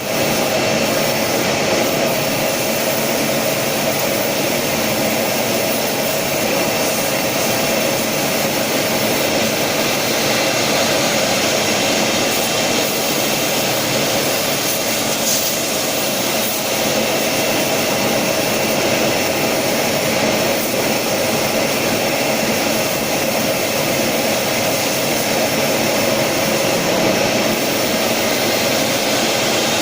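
Woodworking CNC router running: its four cylinder spindles give a steady whine over a loud, even machine noise.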